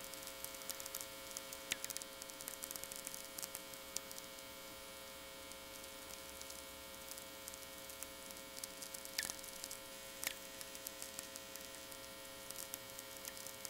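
VLF natural-radio receiver audio: a scattering of sharp clicks, the sferics of distant lightning about 500 miles away, over a steady background mains hum. A few louder clicks stand out, two of them about a second apart near nine seconds in.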